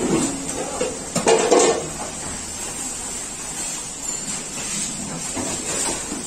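Steel pots and plates clattering briefly about a second in, then a steady kitchen background noise.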